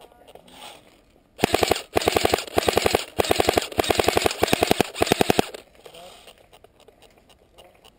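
Airsoft rifle firing on full auto in six or seven short bursts of rapid clicks over about four seconds, starting about a second and a half in.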